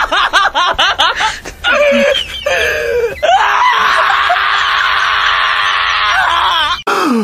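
Shiba Inu screaming in protest at being held down: a quick run of short rising-and-falling yelps for about three seconds, then one long drawn-out scream that cuts off near the end.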